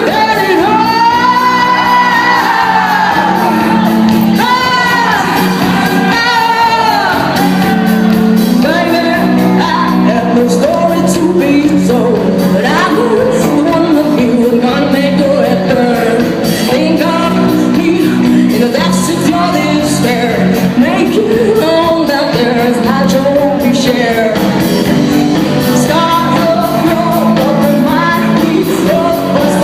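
Live rock band playing loudly, with a singer's voice carrying the melody.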